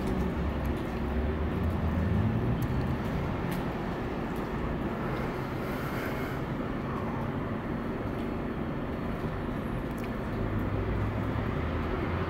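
Steady low rumble of city background noise, with a faint steady hum underneath.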